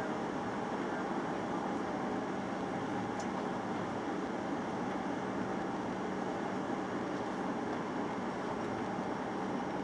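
Steady cabin noise inside a Boeing 737-900 on final approach: a constant rush of engine and airflow noise with a steady low hum running underneath.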